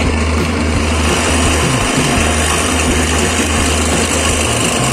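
Bench drill press motor running steadily while its bit bores a hole into a wooden board.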